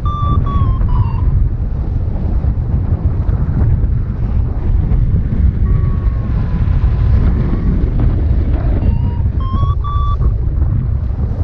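Wind rushing over the microphone in flight, with a paraglider's variometer beeping over it: a run of beeps near the start that drops in pitch, and another about nine seconds in that steps up in pitch, the vario's climb tone signalling rising air.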